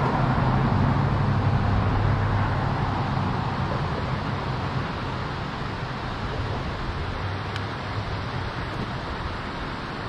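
A vehicle passing on the road across the bridge, its low rumble fading away over the first few seconds. Underneath is a steady rush from the water pouring out below the dam.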